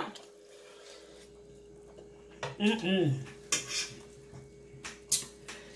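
A metal fork clinking and scraping against a metal baking sheet, with sharp clicks about three and a half seconds in and again near the end. A short vocal sound comes about halfway through.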